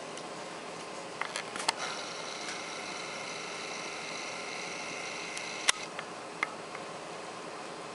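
A camera's zoom motor whining, thin and high and steady, for about four seconds over a constant room hiss. A few small sharp clicks come and go, the loudest shortly before the whine stops.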